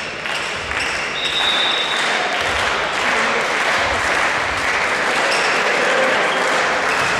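Crowd of spectators applauding in a sports hall, swelling about a second in and then holding steady.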